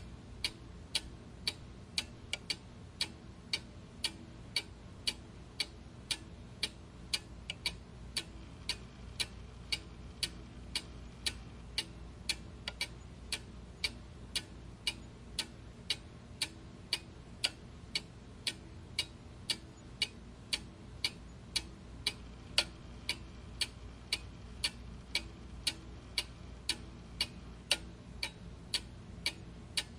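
Clock ticking steadily, about two sharp ticks a second, over a faint low hum.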